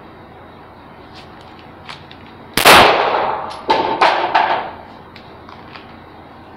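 Handgun shots from a quick draw: one very loud shot, then three more sharp reports in quick succession about a second later, each ringing off the concrete walls of an indoor range. A few light clicks come just before the first shot.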